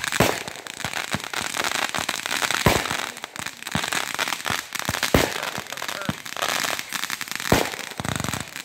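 Consumer aerial fireworks going off: a dense crackle of many small pops, broken by a handful of louder bangs from shells bursting at uneven intervals.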